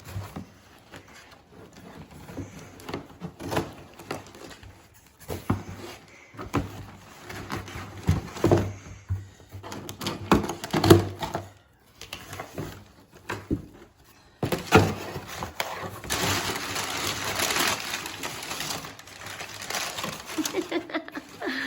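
Cardboard shipping box being opened by hand: irregular knocks, taps and scrapes on the cardboard, then, about two-thirds of the way in, a continuous stretch of rustling and tearing of cardboard and packing paper.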